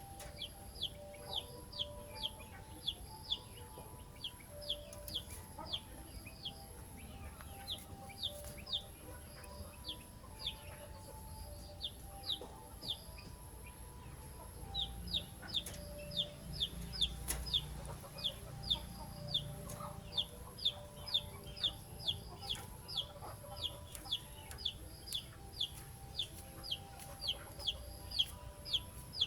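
A bird gives short, high, downward-slurred chirps over and over, about one to two a second, with a brief lull near the middle.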